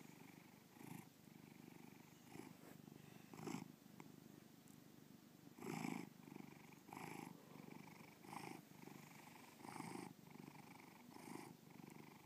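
Domestic cat purring quietly and steadily, the purr swelling with each breath about every one and a half seconds.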